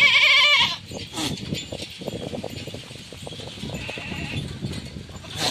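A goat bleats loudly once, a wavering call under a second long, followed by softer shuffling and clicking sounds of the herd and a faint short call about four seconds in.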